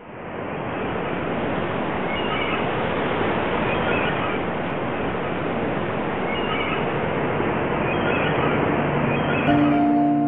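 Steady sea surf fading in, with a few short high cries scattered over it. Soft music comes in near the end.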